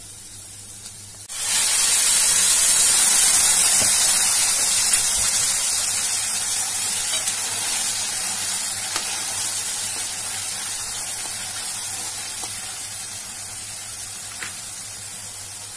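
Blended spinach paste hitting hot tempering oil in a nonstick kadhai: a sudden loud sizzle about a second in that slowly dies down as the paste is stirred.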